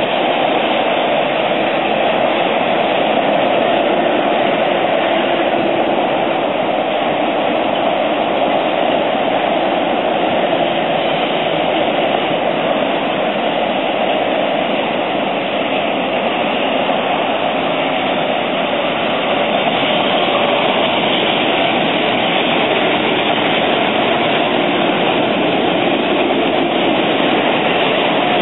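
Steady, unchanging rush of road and rail traffic noise: highway traffic together with an East Rail Line electric train, with no sudden sounds.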